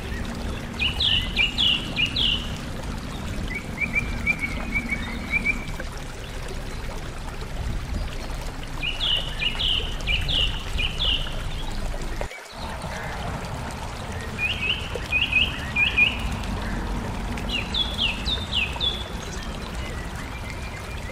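A songbird singing, several times over, short phrases of quick downslurred notes, high-pitched, over a steady rushing background noise.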